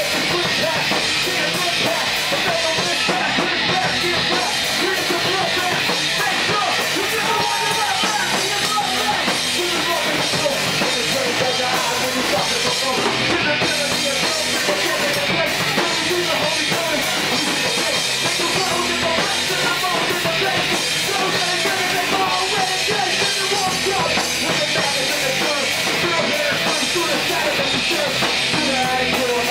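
Live rock band playing loud and without a break: a drum kit with cymbals, electric guitar through an amplifier, and a singer on a hand-held microphone.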